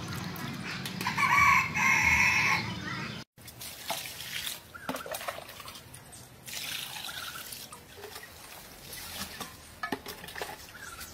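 A rooster crows, a loud drawn-out call of about two seconds starting about a second in, cut off suddenly. Quieter scattered light clicks and knocks follow.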